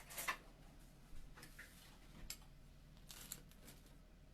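A few faint, scattered clicks and light taps over near silence: a pair just after the start, one about two seconds in, and a few more about three seconds in.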